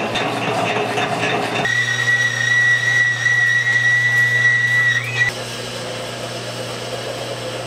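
South Bend 13-inch metal lathe running under a cut. The cutting tool squeals with a steady high whistle for about three and a half seconds, then stops suddenly, and the lathe runs on more quietly.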